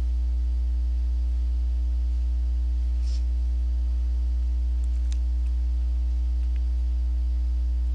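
Steady low electrical hum with a faint background hiss, and a few faint ticks now and then.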